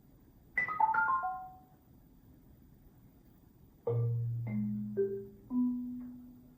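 Solo marimba playing a quick falling flurry of about five high notes. After a pause a deep low note rings on while three more notes are struck above it, about half a second apart.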